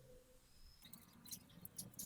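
Faint, irregular clicking and rustling starting about a second in: PC cables being handled and bundled with twist ties for cable management.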